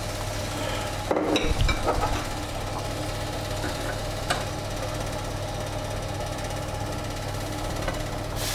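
Metal tongs clicking and clattering against a wire cooling rack and metal baking tray, several knocks about a second in and one more near four seconds, over a steady mechanical hum.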